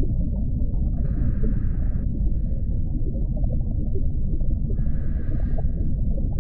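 Steady low underwater rumble with two scuba regulator breaths over it, one hiss about a second in and another about five seconds in.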